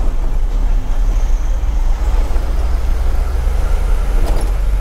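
Ashok Leyland Dost light truck heard from inside its cab while driving: a steady low engine drone under road and tyre noise, with a single brief click near the end.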